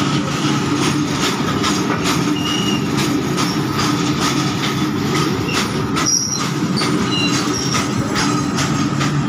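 Indian Railways freight wagons rolling past: a steady, loud rumble of steel wheels on the rails, with repeated clacks and a few short, high-pitched wheel squeals.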